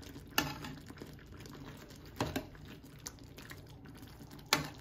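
Metal tongs clicking sharply against a stainless steel skillet three times, about two seconds apart, as steaks are turned in gravy. The gravy simmers underneath.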